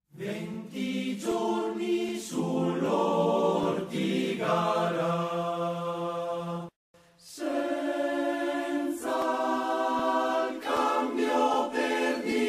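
Choir singing, cutting out for a moment about seven seconds in.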